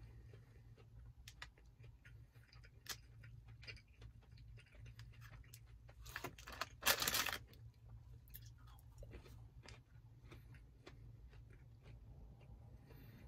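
A person chewing fried cheese curds with the mouth closed: soft, scattered chewing clicks over a steady low hum. About seven seconds in there is one louder, brief rustle.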